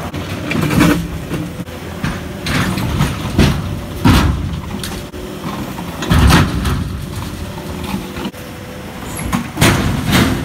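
Case SV250 skid steer's diesel engine running steadily while it lifts broken concrete driveway slabs, with about six loud crashes of concrete and steel; the last, near the end, is the load dropping into a steel dump truck bed.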